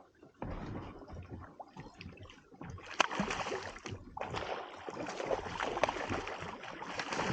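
Water splashing and sloshing beside a small inflatable boat, mixed with knocks and handling noise, a sharp click about three seconds in, and fuller splashing from about four seconds in.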